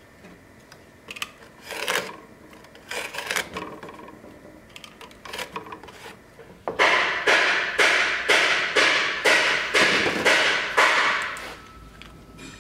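Snap-off utility knife drawn again and again along a steel ruler, slicing through a sheet of black textured hide. It starts as a few scattered scrapes, then becomes a run of about nine quick, even strokes, roughly two a second, in the second half.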